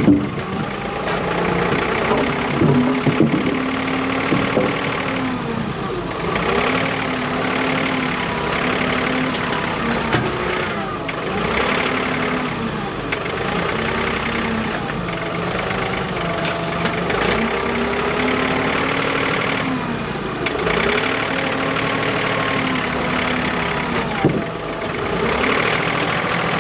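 John Deere 3039R compact tractor's three-cylinder diesel engine running, its pitch rising and falling in repeated swells every few seconds as it works, with a few knocks.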